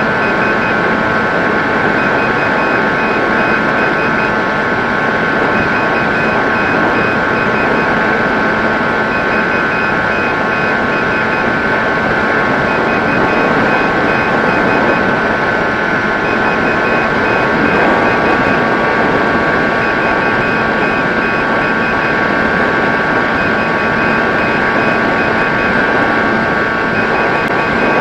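Electric brushless motor of a Mini Drakke RC flying wing running steadily in flight, heard as a whine over wind rush. The motor's pitch steps up slightly a little past halfway, and a faint high pulsing tone comes and goes every couple of seconds.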